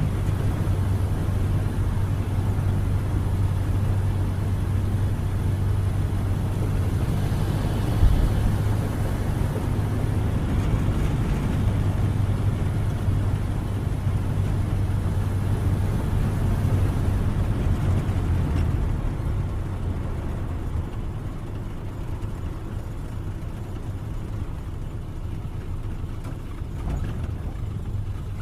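1931 Ford Model A's four-cylinder engine running steadily while the car is driven, a low drone with one sharp knock about eight seconds in. From about two-thirds of the way through it eases off and grows quieter.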